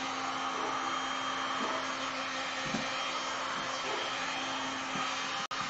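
Handheld electric heat gun running steadily, its fan blowing hot air over wet epoxy resin, a steady rush of air with a low hum under it. The sound cuts out for an instant near the end.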